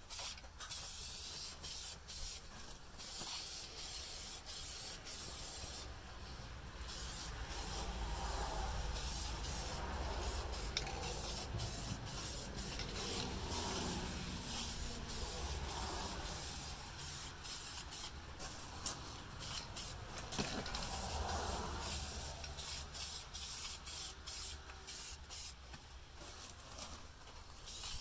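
Aerosol can of Dupli-Color fabric spray paint hissing in many short bursts, stopping and starting over and over, with some rubbing sounds in between.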